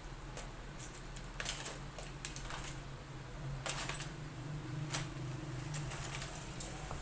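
Scattered light clicks, taps and scrapes of laptop parts and tools being handled as a replacement motherboard is fitted, over a steady low hum.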